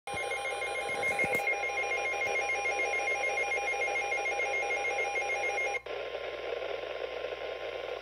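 Midland NOAA weather radio sounding its warning alert for a severe thunderstorm warning: rapid electronic beeping over a steady tone and radio static. The beeping stops about six seconds in, leaving the static hiss.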